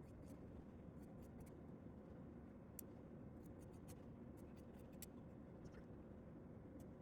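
Near silence: a low steady room hum with faint, irregular light clicks from small handwork.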